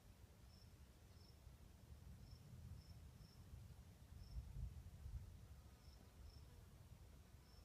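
Crickets giving short, faint chirps, irregularly spaced about one or two a second, over a low rumble that swells in the middle.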